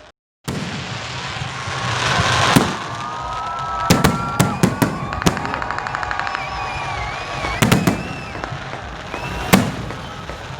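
Fireworks and firecrackers going off in a loud volley: repeated sharp bangs over a constant background rumble, with a quick rattle of crackers about five seconds in and thin whistling tones gliding up and down.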